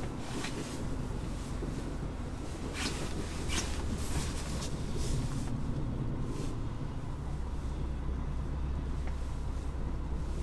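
A six-wheel-drive Scania off-road truck's diesel engine running steadily, heard from inside the cab as it drives slowly over packed snow. The low drone gets stronger about seven seconds in, with a few faint clicks along the way.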